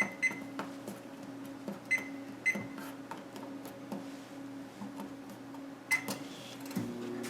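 Microwave oven keypad beeping as its buttons are pressed: two quick beeps, a pair about two seconds in, and one more near the end. A steady electrical hum runs beneath and changes pitch near the end.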